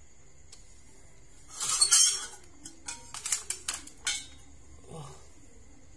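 Metal forceps and a small metal tin clattering together: a clatter a little under two seconds in, then a quick run of sharp clinks.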